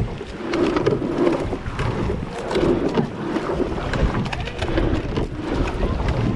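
Rowing eight under way at race pace. The splash of the oars in the water and the clunk of the oarlocks and seats rise and fall with each stroke, with wind buffeting the microphone.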